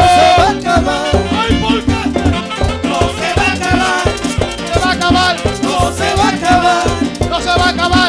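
A live band playing upbeat Latin dance music in a salsa style, with a steady driving drum and bass beat, a shaker, and sung and horn melody lines on top.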